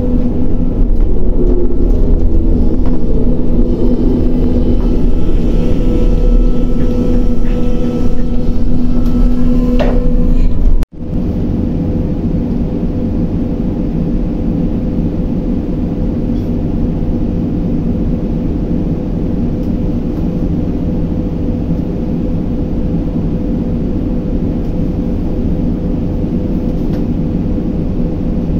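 Crane machinery running with a loud, steady low drone and a steady hum on top. About eleven seconds in the sound cuts out for a moment and then continues as a slightly quieter, even drone without the hum.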